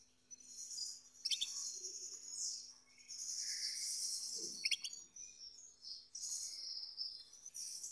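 Male Gloster canary singing its courtship song: long high chattering and trilling phrases with short breaks, and two sharp clicks, the first about a second in and the second near the middle.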